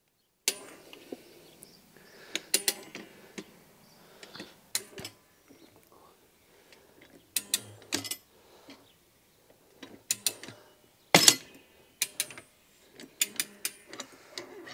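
Motorcycle tyre bead being levered over the rim with a Rabaconda tyre-changer's lever. Irregular clicks, knocks and creaks of the metal tool against the wheel and the stretched rubber, with the loudest knock about eleven seconds in.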